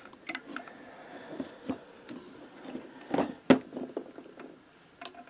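Scattered clicks and light scrapes of metal moped-engine parts being handled as the piston is set down onto an aluminium spacer block resting on the crankcase, with two louder knocks a little past the middle.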